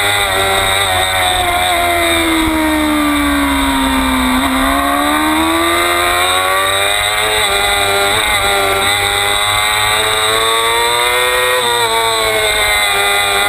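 600 cc sport bike engine at high revs, heard onboard with wind rush. Its pitch sinks slowly for about four seconds, jumps up sharply, then climbs steadily for several seconds and eases slightly near the end.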